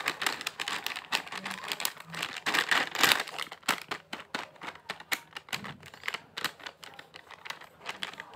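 Plastic BTW Crancho snack packet crinkling and crackling as hands press and handle it, in irregular crackles that are busiest about three seconds in.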